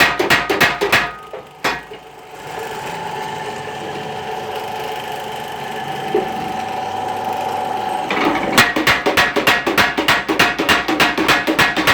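Homemade power hammer. It opens with a burst of rapid blows and then one blow, then runs for several seconds with a steady tone from its drive. About two-thirds of the way through, rapid, evenly spaced hammer blows start again, about five a second.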